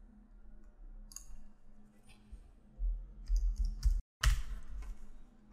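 Scattered computer mouse clicks at a desk, with a dull low rumble in the second half. The sound cuts out completely for a moment about four seconds in.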